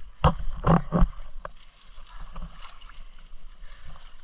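Lake water splashing and sloshing as someone moves through it, with three loud splashes in the first second, then lighter, continuous sloshing.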